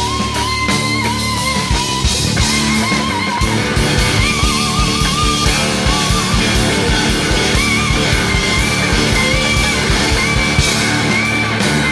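Rock music with a drum kit keeping a steady beat, guitar, and a lead melody that wavers in pitch.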